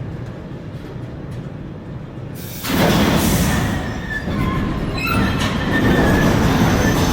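A train running past on the tracks: a low rumble that swells about two and a half seconds in into a loud rush of wheel and rail noise, with brief high wheel squeals in the middle.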